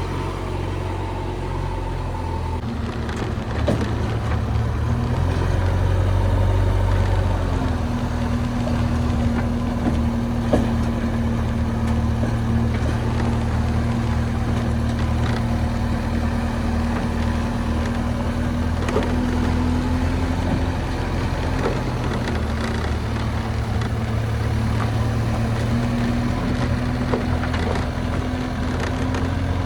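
Heavy diesel machinery engine running steadily. A steady whine comes in about seven seconds in, holds for around thirteen seconds, drops out, and returns near the end.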